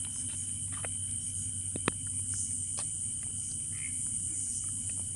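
Steady high-pitched chirring of night insects such as crickets, with scattered light ticks and one sharp click about two seconds in.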